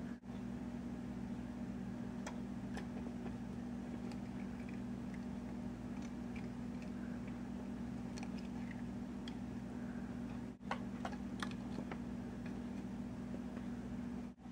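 Steady low mechanical hum with a few faint light ticks scattered through it, several close together about three-quarters of the way in. The sound cuts out briefly twice.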